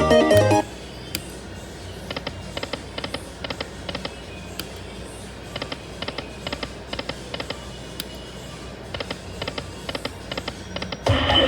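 Lightning Link video slot machine sounds: a short pitched chime at the start, then repeated bursts of rapid electronic ticking as the reels spin and stop, and another pitched jingle near the end.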